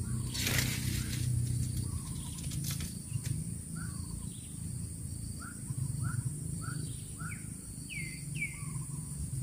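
Short bird chirps, about ten of them in quick succession in the second half, the last few falling in pitch, over a low steady hum, with a brief rustle about half a second in.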